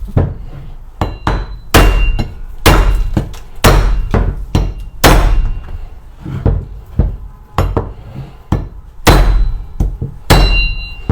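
Heavy blows of a bone-chopping cleaver striking into a very hard bone, a string of irregularly spaced hits, the loudest roughly a second apart, some leaving a short metallic ring.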